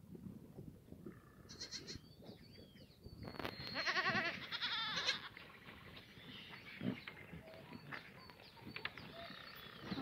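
Black goats bleating. The loudest is a long, wavering bleat from about three to five seconds in, with a shorter one earlier.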